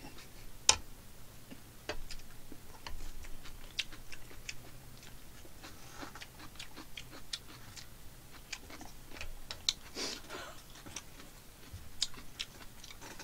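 A person eating jjajangmyeon (black-bean-sauce noodles), quiet soft chewing with scattered, irregular sharp clicks.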